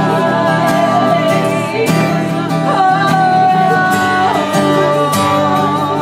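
Live worship music: a band with guitar playing under long held sung notes that slide in pitch now and then.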